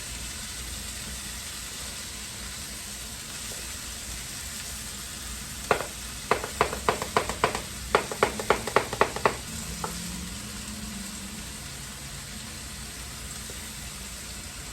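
Steak burger patties sizzling steadily as they fry in a pan. Midway there is a quick run of about fifteen sharp taps, roughly four a second, lasting some four seconds.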